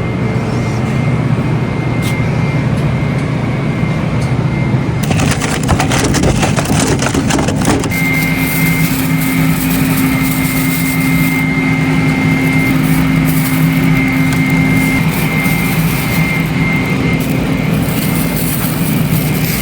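Steady vehicle noise, a continuous low rumble with a faint high tone, broken by a few seconds of crackling about five seconds in.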